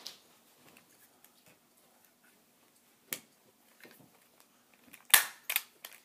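Plastic BB pistol being handled and its slide racked by hand: a single sharp click about three seconds in, then a quick run of loud plastic clacks near the end.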